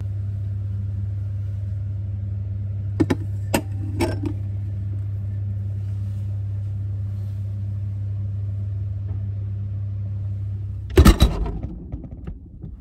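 Steady low hum of a refrigerator, heard from inside it. Three sharp clinks come around three to four seconds in as glasses of jelly are set on the glass shelf, and about eleven seconds in the fridge door shuts with a thump, after which the hum is gone.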